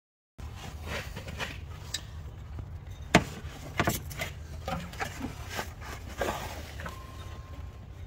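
Hands fitting a serpentine belt around the engine pulleys and belt tensioner: irregular clicks, taps and knocks of belt and metal parts, the sharpest about three seconds in, over a steady low rumble.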